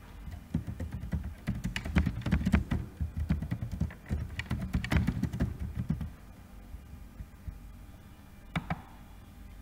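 Typing on a computer keyboard: a quick run of keystrokes for about six seconds, then it stops, with one more click near the end.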